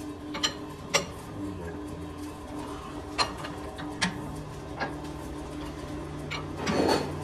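Metal-turning lathe running with a steady hum, with about half a dozen sharp metallic clicks at irregular intervals.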